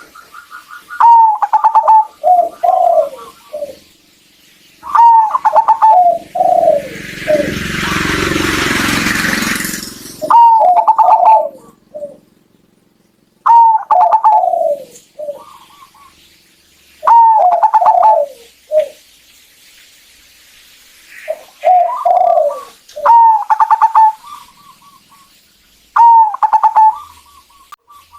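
Zebra dove cooing: a stuttering phrase of notes falling in pitch, repeated about every three to four seconds, seven phrases in all. A loud burst of rushing noise covers it for about three seconds near the middle.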